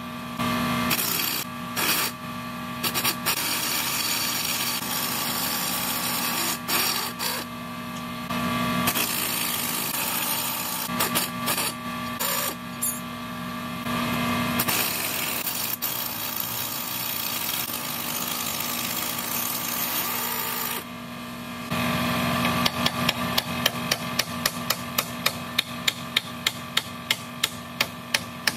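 Shop tool noise at a truck steering knuckle: a power tool runs in stretches with short pauses, then a quick run of hammer blows, about three a second, near the end.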